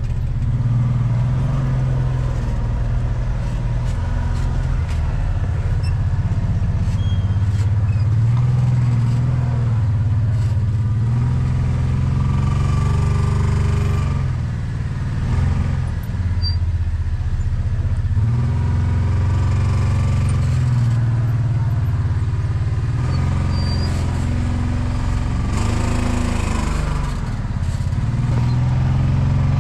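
Engine of a Kawasaki four-seat side-by-side working at low speed as it crawls up rock ledges, its pitch rising and falling several times with the throttle.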